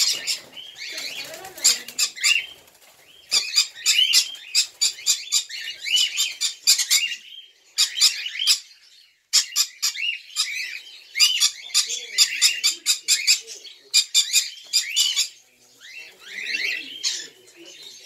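A flock of caged small parrots chattering: bursts of rapid, shrill chirps lasting a few seconds each, with short lulls between.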